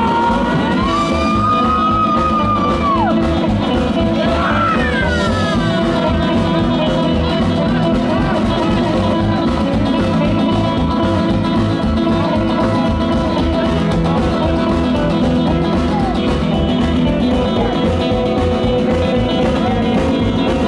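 Live rock and roll band playing an instrumental passage: electric guitar over bass and drums at a steady beat, with a few bending, gliding notes in the first few seconds.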